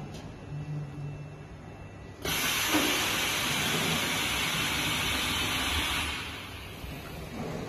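Mattress packing machine running with a low hum, then a loud steady hiss that starts suddenly about two seconds in, holds for nearly four seconds and fades away.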